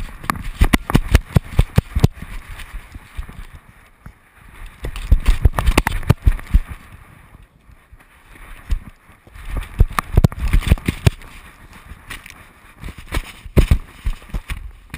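Body-mounted GoPro jolting on a running dog: rapid knocks and rattling with each stride, in bursts of a second or two separated by quieter moments.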